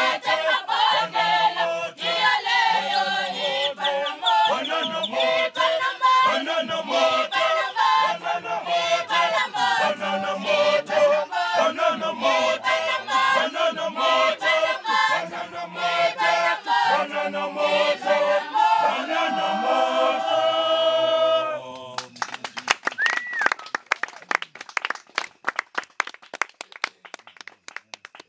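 A group of voices singing together unaccompanied, in harmony, until the song ends about three-quarters of the way through. Then applause that thins out, with a short whistle just after the song ends.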